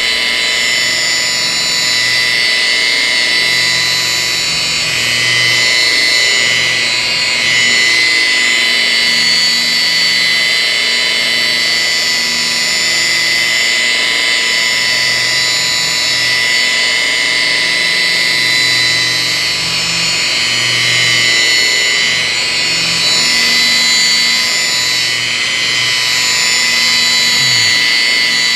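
DeWalt rotary polisher running steadily with a wool pad on car paint: a steady high electric-motor whine, with the pad's load on the panel swelling and easing slightly as it is worked across.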